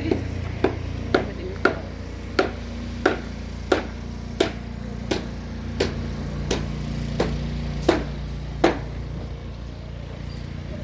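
A tool striking hard material in a steady rhythm, about fourteen blows at roughly one and a half a second, the way a hammer is worked, stopping about nine seconds in. A steady low hum runs underneath.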